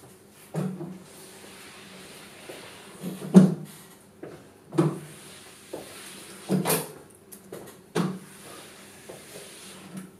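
Sliding chalkboard panels being moved by hand: a scraping slide broken by about five knocks and thumps, the loudest about three and a half seconds in.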